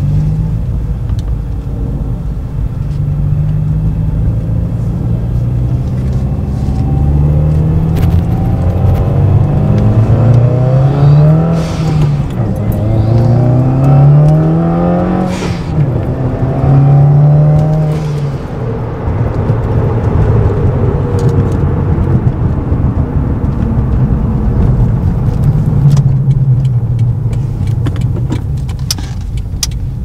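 Subaru WRX/STI's turbocharged flat-four engine, heard from inside the cabin while driving. It revs up in pulls, and the pitch drops at each gear change, with three quick climbs between about ten and sixteen seconds in. After that it settles into a steadier run.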